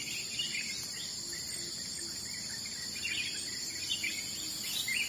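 Insects chirping in a steady, high-pitched chorus, with a few short chirps scattered over it.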